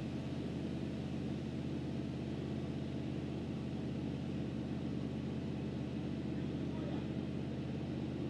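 1976 Chevy C65 log truck's engine idling steadily.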